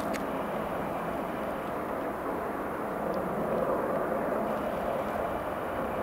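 Steady drone of a distant engine, an even low rumble with no sharp strikes in it.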